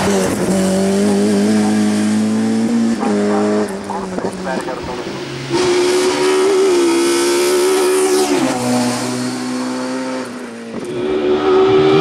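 Ford Escort hill-climb race car's high-revving 16-valve racing engine at full throttle. It holds a high, steady pitch, and the pitch drops abruptly a few times as it changes up a gear.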